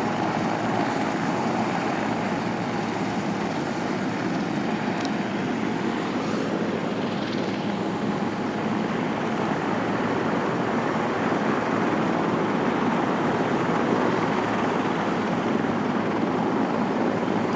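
Mitsubishi MRJ airliner's twin turbofan jet engines at takeoff power, a steady, wide rushing noise that holds an even level throughout.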